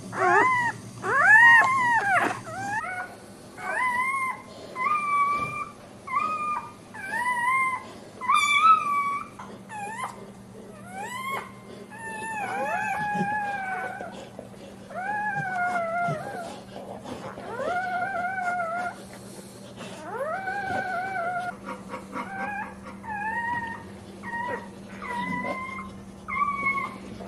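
Newborn pit bull puppies crying: a long run of high-pitched squealing cries, about one a second, each rising and then falling in pitch, the loudest few near the start. A faint steady hum runs underneath.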